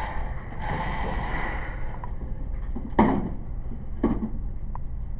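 Two sharp gunshot reports in an indoor range, about a second apart, the first the louder, after a second or so of rustling handling noise.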